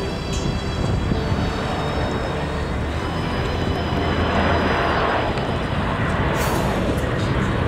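Qantas Airbus A380-800 with its four Rolls-Royce Trent 900 engines flying low on approach with gear down: a steady jet rumble with a faint high whine that fades out within the first three seconds, then a swell of rushing noise about halfway through.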